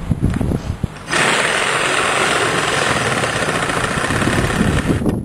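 A power saw cutting roofing. It starts about a second in, runs steadily for about four seconds and cuts off suddenly.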